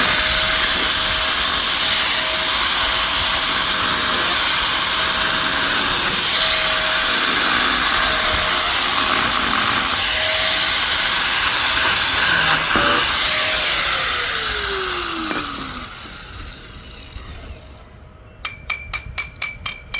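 Electric drill boring into granite, a steady loud grinding whine. About 13 seconds in the motor is released and winds down in falling pitch, and near the end there is a quick run of light clinks.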